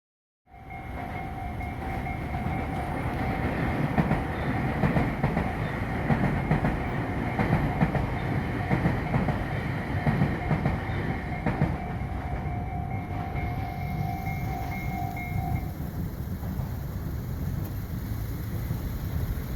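Railway level crossing warning bell ringing steadily while a train rumbles over the crossing with wheel clatter on the rails. The bell cuts off about three-quarters of the way through, and the train noise carries on.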